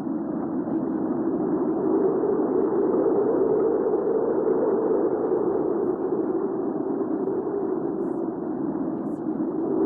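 Recorded hurricane wind ambience: a steady, low, rushing wind that slowly swells and eases.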